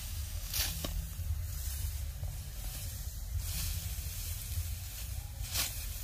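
Dry rice straw rustling and swishing as a hand sickle cuts and gathers the stalks, in three short swishes: about half a second in, about three and a half seconds in, and near the end. A steady low rumble runs underneath.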